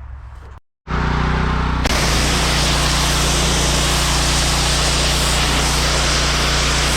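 Honda GX390 single-cylinder engine running steadily on a 3700 psi pressure washer; about two seconds in the spray starts, and a loud steady hiss of the high-pressure water jet holds over the engine.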